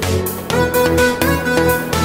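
Background music with a steady beat, about two beats a second, over a pitched melody.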